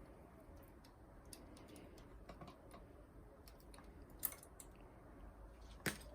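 Faint scattered clicks and taps from handling the cassette deck's mechanism and small parts during disassembly, with two sharper clicks, one a little past the middle and one near the end.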